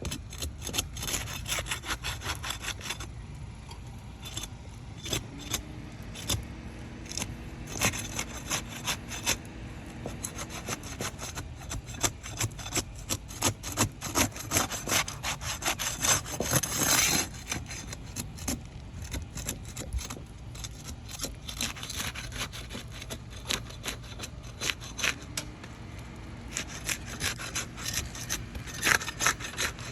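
A metal pry tool scraping and rasping under asphalt shingles in runs of short, rapid strokes with brief pauses, working the shingles loose from their seal. The shingle is starting to delaminate as it is worked.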